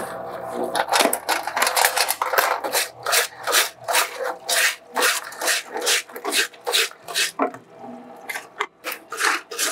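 Stiff-bristle brush scrubbing a bicycle chain wet in a parts washer: quick back-and-forth strokes, about three a second, with a short let-up near the end.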